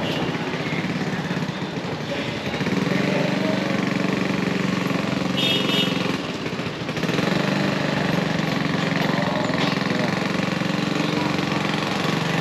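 A small petrol engine running at a steady speed, a constant low hum that drops away for a moment about six seconds in and then picks up again.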